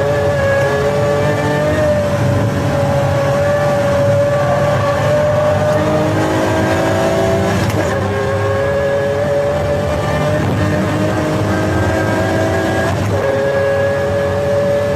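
Pagani Zonda F Clubsport's Mercedes-AMG V12 under sustained acceleration, its pitch climbing slowly through each gear and dropping with upshifts about eight seconds in and again about thirteen seconds in.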